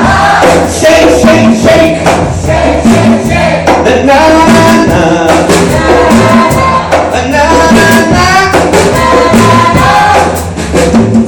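Loud live rock-medley music with a group of voices singing along, over a steady beat with tambourine-like percussion.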